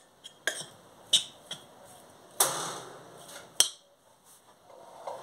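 Metal spoon clinking and knocking against a bowl while seasoned raw shrimp are mixed: about six separate sharp clinks, with a louder knock and short scrape about two and a half seconds in.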